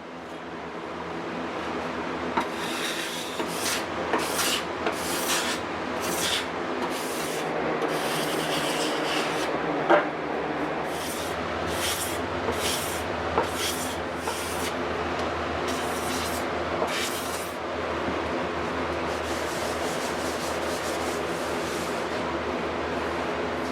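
Hand card scraper scraping dried epoxy fills flush on a wooden slab, in repeated short scratchy strokes about two a second, with a few pauses.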